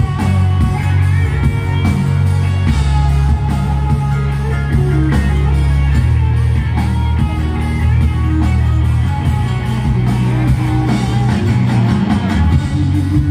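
Live band music in a large arena: electric guitars over bass and drums, played loud and without a break.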